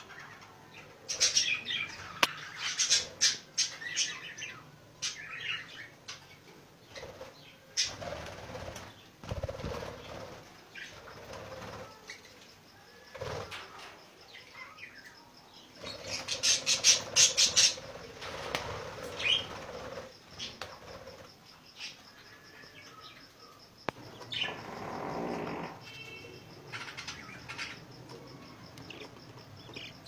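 A flock of budgerigars chirping and chattering, with wingbeats as birds flutter and fly between perches. The busiest high chirping comes in two bursts, one near the start and one just past the middle.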